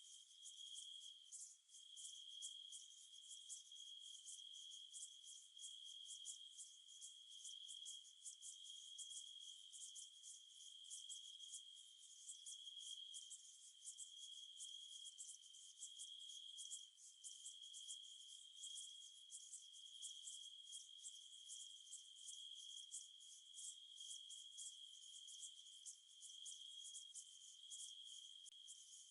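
Faint, steady chirring of night insects: a continuous high whine that breaks off briefly now and then, under a rapid, dense higher chirr.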